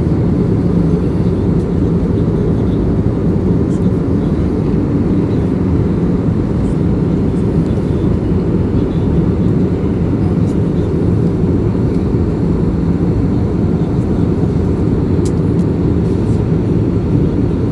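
Airbus A320 airliner in flight: a steady low roar of engine and airflow noise that holds unchanged throughout.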